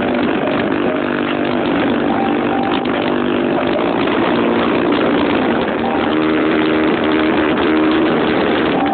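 Car sound system playing music very loud and heavily distorted, with a dense beat and short held notes that change in steps.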